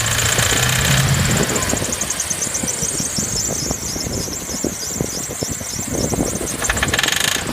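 BMW E36 engine running with a steady high squeal from a worn idler pulley. Irregular sharp knocks ('Nageln') come from the engine block, the symptom the owner is chasing.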